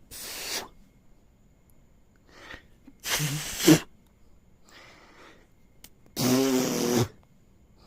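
Raspberries blown by a person's lips on a puppy's tummy: three loud buzzing blows about three seconds apart, with fainter breathy sounds between them.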